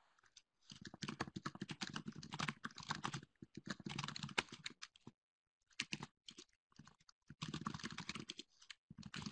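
Typing on a computer keyboard: fast runs of keystrokes in several bursts, with short pauses between them.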